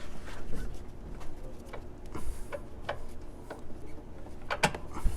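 Scattered metallic clicks and light knocks as the bushing bolt is pulled out and the lower control arm is worked free of its mount, with a couple of sharper knocks near the end.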